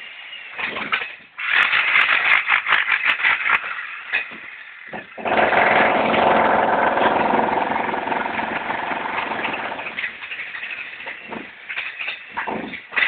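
Handheld corded power tool working against masonry: several seconds of rattling, then about five seconds of steady running, then a few short bursts near the end.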